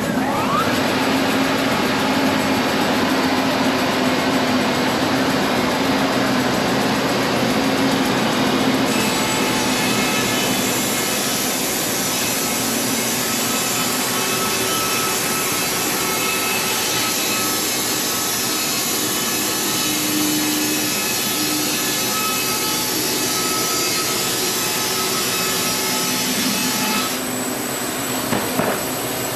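Sawmill blade cutting lengthwise through an old heart pine beam: a loud, steady sawing hiss. The high part of the sound drops away near the end.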